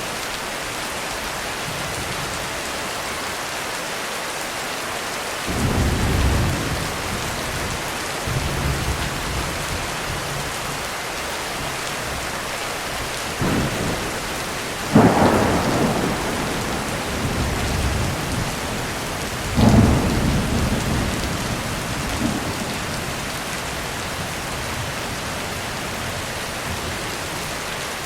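Heavy rain pouring steadily, with thunder rolling in several low rumbles; the loudest, a sharp clap, comes about halfway through, followed by another a few seconds later.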